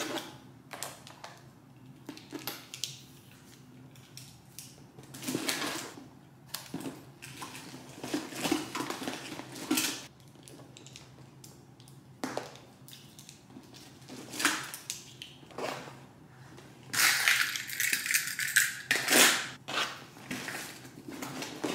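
Rustling, clicks and light clattering of belongings being handled and packed into a bag, with a louder, denser stretch of rustling near the end.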